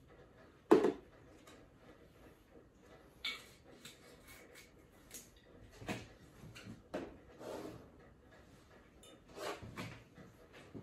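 Glass liquor bottles and bar tools being handled on a bar counter: a series of separate knocks and clinks as bottles are picked up and set down, the loudest about a second in.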